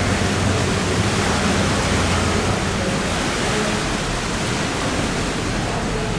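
Steady rushing of water flowing through a sluice gate, with the low hum of a passing cargo barge's engine in the first few seconds.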